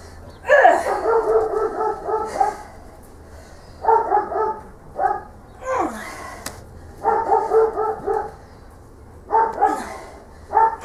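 A dog barking and yipping in about six short bouts, with brief pauses between them.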